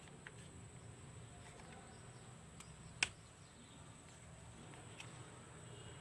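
Quiet handling of small plastic laptop parts, with one sharp click about three seconds in as the DVD-ROM drive's plastic bezel is unclipped to go onto the HDD caddy. A faint steady high whine runs underneath.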